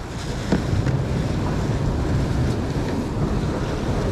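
Wind rumbling and buffeting on the microphone, with a faint knock about half a second in.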